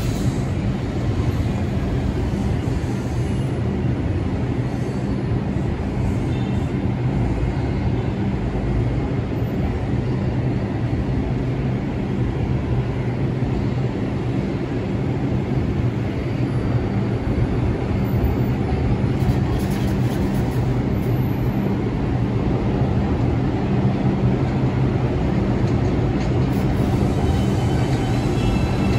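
R142 subway train running on the track: a steady rumble with a low, even hum.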